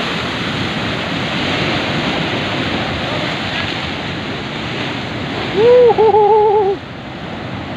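Large ocean waves breaking and washing in foam over a flat rock shelf, a steady surf. About three-quarters of the way in, a short wavering call rises above the surf for about a second.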